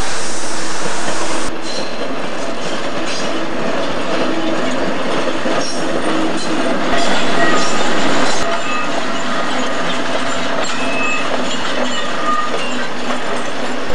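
Coal train of loaded hopper wagons rolling past, wheels clicking over the rail joints with short bouts of squealing.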